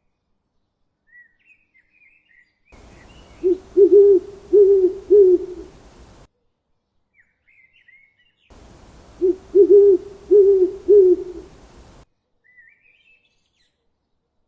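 A bird's low hooting call: a run of about four quick hoots, given twice about six seconds apart. Faint high chirps from small birds come between the runs.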